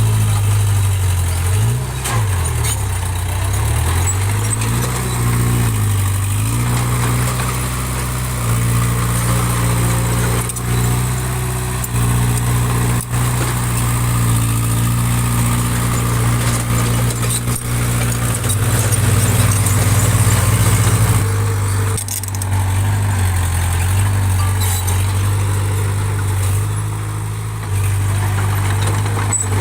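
Small bulldozer's diesel engine working under load. Its pitch dips and rises several times in the first few seconds, then holds mostly steady, with occasional knocks.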